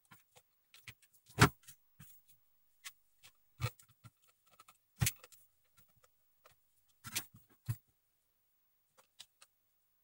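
Hands handling a vacuum cleaner's motor control circuit board, its wires and the plastic motor housing: a few scattered clicks and knocks of plastic, the loudest about a second and a half in.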